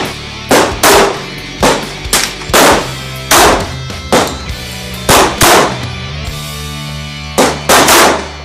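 A string of about eleven gunshots from firearms, the later ones from a semi-automatic pistol, irregularly spaced with several fired in quick pairs. Each shot rings out briefly. Rock music plays underneath.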